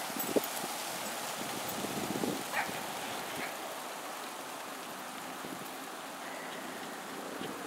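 Steady rushing hiss of wind on the microphone, with a couple of faint short yips from small dogs about two and a half and three and a half seconds in.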